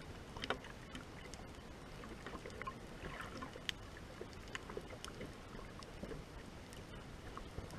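Underwater ambience heard through a submerged camera: a steady hiss sprinkled with scattered, irregular sharp clicks and crackles.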